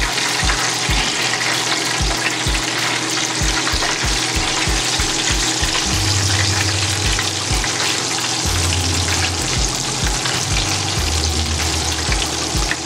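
Breaded chicken breasts deep-frying in hot oil in a fry basket: a steady, dense sizzle of vigorously bubbling oil, freshly added pieces.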